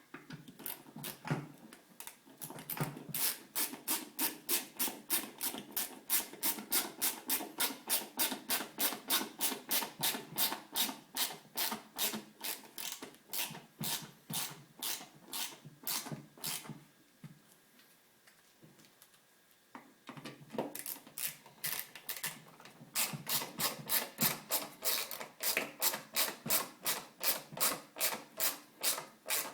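A hand ratchet clicking steadily, about three clicks a second, as bolts are driven in. The clicking stops for about three seconds past the middle, then resumes.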